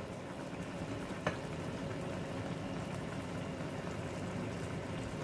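Pork hamonado's thick, reduced sauce simmering in a wok, bubbling steadily, with one small click about a second in.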